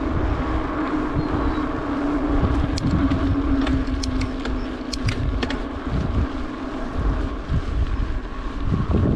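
Wind buffeting the microphone of a mountain bike rolling along rough, cracked pavement, with tyre noise and scattered clicks and rattles from the bike. A steady hum runs underneath and fades out about six seconds in.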